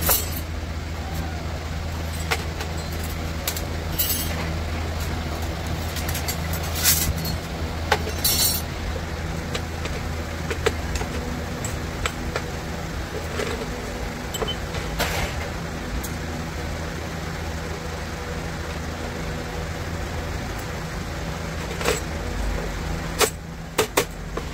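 A steady low machine hum runs throughout, with scattered sharp metallic clicks and knocks, a few louder ones in the middle and a quick cluster near the end.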